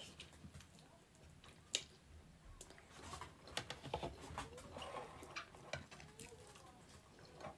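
Chewing steamed chicken wing: soft, wet clicks and smacks of the mouth, busiest from about three to five seconds in, with one sharp click a little under two seconds in.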